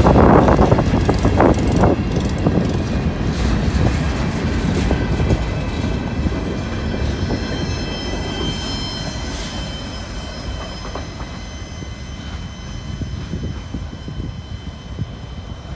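Freight cars rolling past over a road crossing, wheels clattering over the rail joints; the last car goes by and the rolling sound fades steadily as the train moves away.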